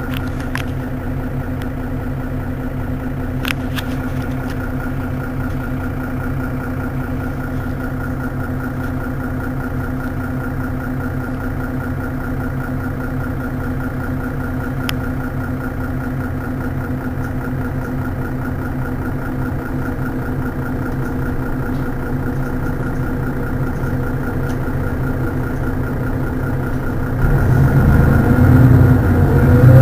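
Mercedes-Benz Citaro city bus's diesel engine idling steadily, with a constant hum over it. Near the end a louder, deeper rumble sets in.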